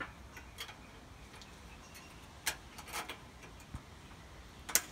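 Baling wire clicking as it is twisted tight by hand at the eye of a metal garden frog ornament: a handful of scattered sharp clicks, the loudest near the end.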